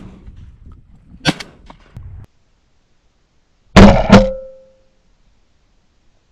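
Two shotgun blasts from a semi-automatic Remington 1100, about a third of a second apart, each ringing briefly as it fades. They come after a couple of seconds of low rustling and clicks, then a short silence.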